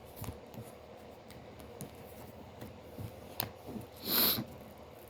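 Tarot cards being handled: soft scattered taps and rustles, with a short hiss about four seconds in.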